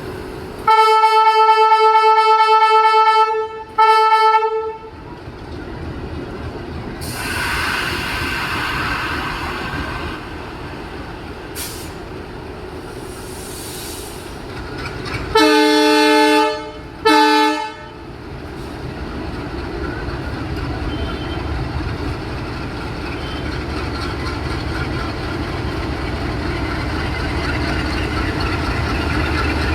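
WDG3A ALCo diesel locomotive's departure horn sounds a long blast then a short one, and about fifteen seconds later another long-short pair on a deeper note. After that the locomotive's engine rumble builds steadily as the train starts to move off.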